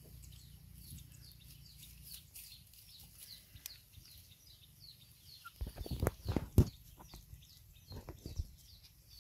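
Puppies eating from a bowl: wet smacking and knocks start about halfway, loudest a second later. Under them runs a string of high, short chirps repeating a few times a second.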